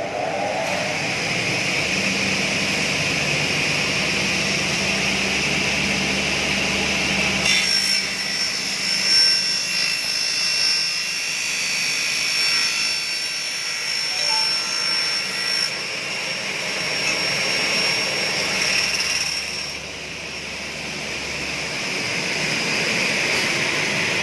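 Circular saw of a double-head aluminium cutting machine running, and from about seven seconds in cutting through an aluminium profile at 45 degrees for about eight seconds with a high ringing whine. The cut ends and the saw runs on.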